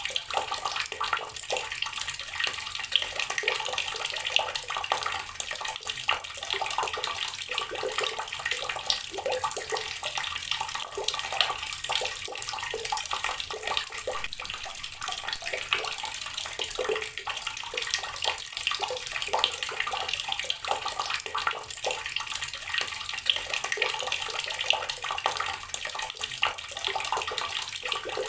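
Water pouring steadily from a tap and splashing onto rocks, a continuous irregular splatter with many small drips and spatters.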